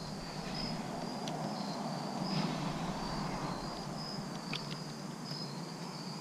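Crickets chirping in a steady pulsing trill over a low background hum, with a few light clicks as the mirror clamp is worked by hand.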